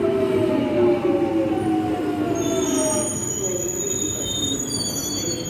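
Jubilee line 1996-stock Underground train braking into the platform: its traction motors whine, falling steadily in pitch as it slows. About halfway in, a high-pitched squealing of the wheels and brakes joins as it comes to a stop.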